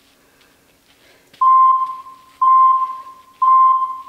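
Workout interval timer counting down the end of a rest period: three short, loud electronic beeps of one pitch, about a second apart, starting a little over a second in.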